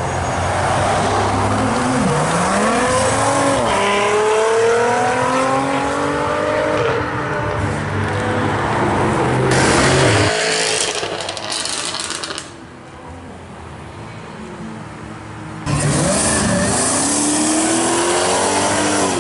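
Car engines accelerating hard, revs climbing and dropping back through several gear changes. A quieter gap follows, then a second car's engine cuts in loud and accelerates with rising revs.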